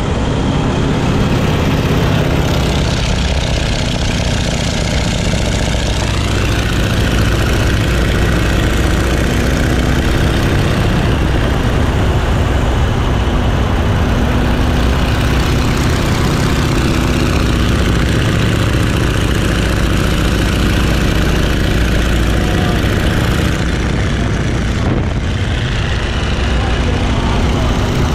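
Boeing Stearman biplane's radial engine and propeller running steadily in flight, its pitch shifting a few times, heard from the open cockpit under heavy wind rush.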